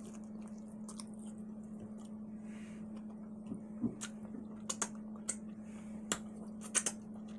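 Close-miked eating: wet mouth clicks and smacks of chewing steak and mashed potatoes, scattered and irregular, thickest in the second half, over a steady low hum.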